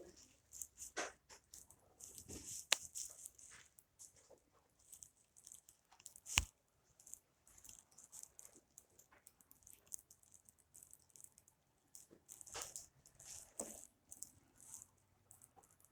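Kinetic sand being handled: scattered soft crunching and crumbling in a few clusters, with one sharper tap or click about six seconds in.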